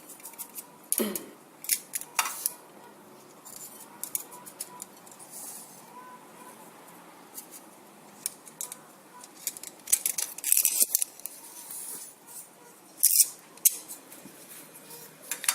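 Crisp fried grated coconut (serundeng) being spooned and sprinkled over fried chicken: scattered scratchy rustles and light clicks of the spoon, with a few louder scrapes about ten and thirteen seconds in.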